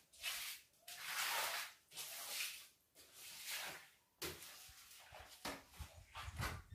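Long-handled floor broom sweeping a wet, soapy concrete floor in a series of hissing strokes, about one a second, with softer scuffs near the end.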